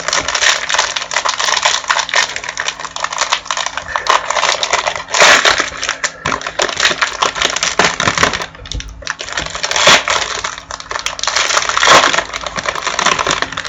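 Trading-card pack wrappers being torn open and crinkled close to the microphone, along with the cards being handled; the dense crackling pauses briefly about two-thirds of the way through.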